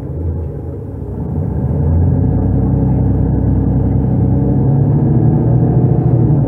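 Mercedes-Benz O530 Citaro city bus with a Voith automatic gearbox, heard from inside the passenger cabin while driving: the diesel engine and drivetrain run under load. It grows louder about two seconds in, then holds steady.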